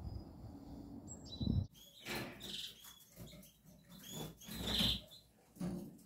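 Quiet outdoor ambience, then after a sudden cut just under two seconds in, caged canaries chirping in short calls, with a few knocks in between.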